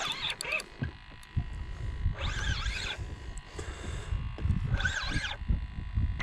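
Fishing reel whirring in three short bursts, its pitch bending up and down, as a heavy fish takes line. Low wind rumble on the microphone underneath.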